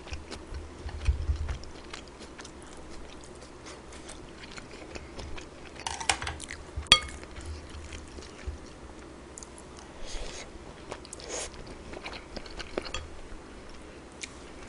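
Close-up chewing and biting of a meal of kimchi fried rice, with wet smacks and short crunchy crackles. About seven seconds in, a spoon clinks once against a dish with a brief ring.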